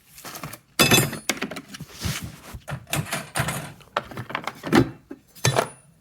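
A string of irregular knocks and clunks, as of metal car parts and tools being handled and set down, the loudest about a second in.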